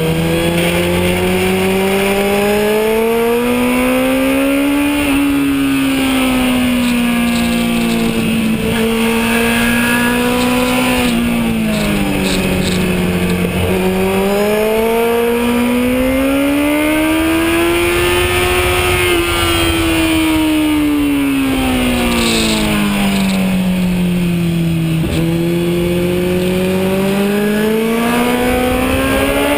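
Onboard sound of a Kawasaki Z1000's inline-four engine under hard riding on a track. The engine pitch climbs and falls several times as the throttle opens and closes through the corners, with a few sudden steps in pitch, over steady wind rush.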